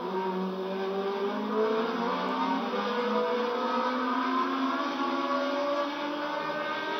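Several Formula One racing cars' engines running at racing speed, overlapping, their pitches gliding up and down as they pass. The sound is thin, old television broadcast audio.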